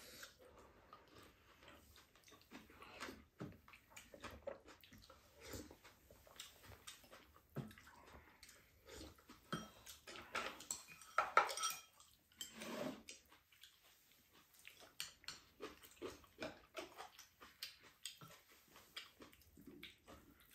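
Spoons tapping and scraping against ceramic porridge bowls: quiet, irregular clinks, most frequent about ten to thirteen seconds in.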